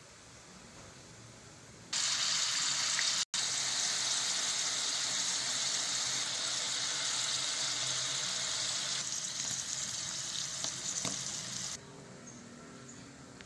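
Sliced mushrooms sizzling as they fry in hot oil: a loud, steady hiss that starts suddenly about two seconds in and drops away suddenly near the end.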